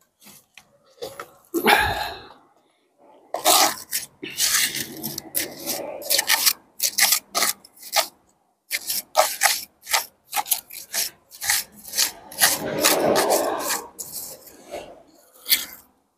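Thin steel pointing trowel scraping lime mortar off a hand board and pressing it into brick joints: a run of short, quick scrapes, with a dull bump about two seconds in.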